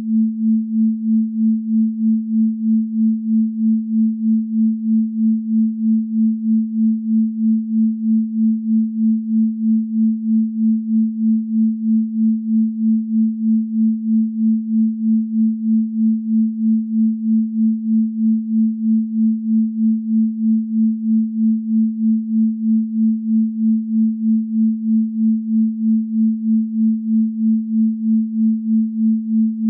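A pure electronic sine tone at 221.23 Hz, the 'Venus frequency' (an A), held at one steady pitch. Its loudness pulses evenly about two to three times a second.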